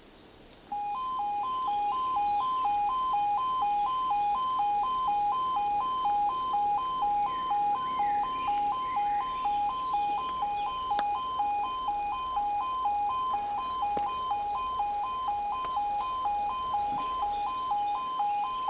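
Level crossing audible warning alarm sounding its two-tone yodel, switching back and forth between two pitches about three times a second. It starts suddenly about a second in: the warning that a train is approaching.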